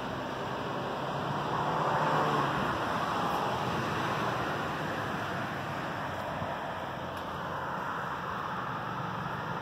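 Steady city road-traffic noise, swelling as a vehicle passes about two seconds in.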